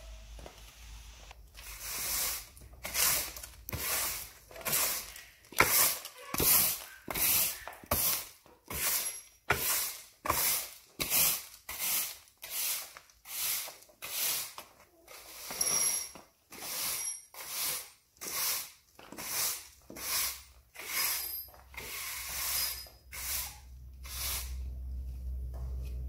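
Stiff-bristled push broom sweeping dust and debris across a bare concrete floor: a steady run of scraping strokes, about one and a half a second, stopping shortly before the end.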